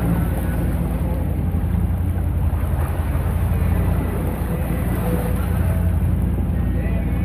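Sailboat under way through a choppy sea: a steady low rumble of wind buffeting the microphone and water washing along the hull.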